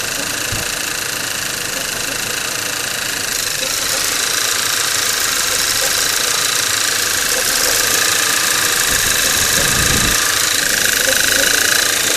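Skoda Octavia 1.8 TSI turbocharged four-cylinder petrol engine running cold, with the shuffling noise that the owner says appears a couple of minutes after a cold start and lasts three to five minutes. The sound's higher tones shift about four seconds in.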